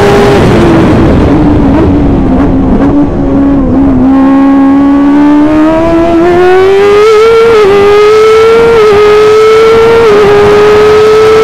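Onboard sound of a Formula 1000 race car's motorcycle engine on track. The engine note falls as the car slows for a corner, then rises as it accelerates away, with quick upshifts about every second and a half in the second half.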